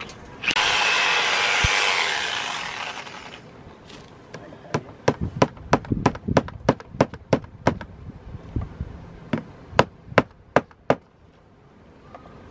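About three seconds of loud hissing noise, then a run of sharp hammer taps, irregular at about two a second, as a cable is fastened along the top of the vinyl siding.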